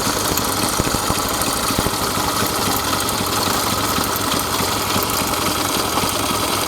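Honda Benly CD125K3 motorcycle's air-cooled parallel-twin engine idling steadily, with no rise or fall in revs.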